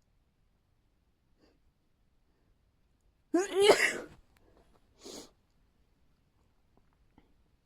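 A person sneezing once, loud, with a voiced, falling "achoo" about three seconds in. A short breath follows about a second later.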